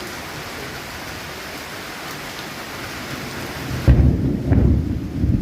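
Heavy rain falling steadily, then about four seconds in a sudden low rumble of thunder breaks in and becomes the loudest sound, rolling on to the end.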